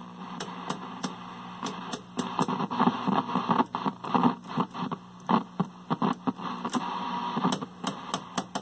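A vintage TV's rotary channel selector clicking through its detents, while the set's speaker puts out static hiss and bursts of crackle between stations. A steady mains hum runs under it, loud through the speaker, which the owner puts down to an open filter.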